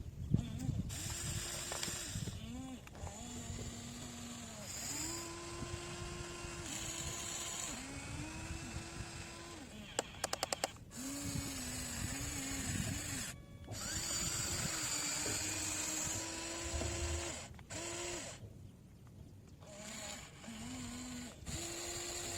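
Radio-controlled model excavator's electric motors whining as it digs, the whine starting, stopping and stepping between two pitches as different movements are worked. A quick run of sharp clicks comes about halfway through.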